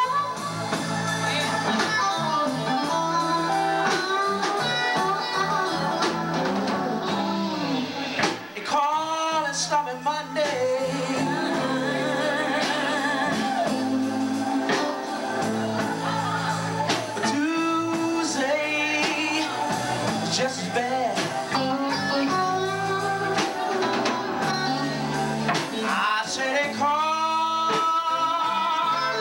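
Live blues band: a man singing over electric guitar and drums.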